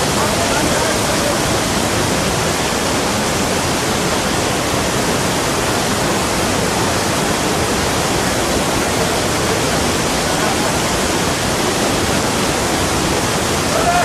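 Sajikot's Umbrella Waterfall pouring down: a loud, steady rush of falling water.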